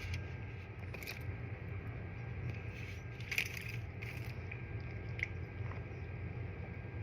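Close-up chewing: a few soft, wet mouth clicks and squishes, the loudest about three and a half seconds in, over a steady low background hum.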